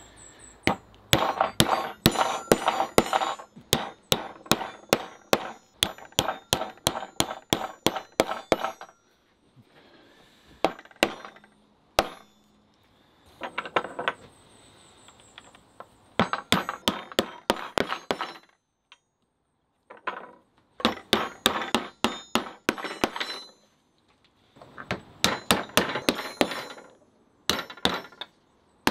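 Hammer blows on a wooden block held against a copper rivet, peening the rivet head over into an iron hook plate. The strikes come in quick runs of about three a second, with short pauses between runs.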